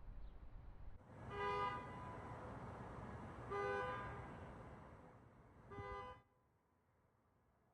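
Horns of driverless Waymo robotaxis honking at each other, three short honks of about half a second each, a couple of seconds apart, over a faint background hum that drops away near the end.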